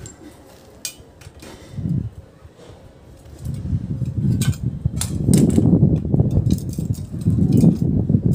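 Metal clinks and scrapes of a bolt, nut and box spanner as a bolt is fitted into a satellite dish stand's steel brace and tightened. From about three and a half seconds in, a louder low rumbling noise runs under the clinks.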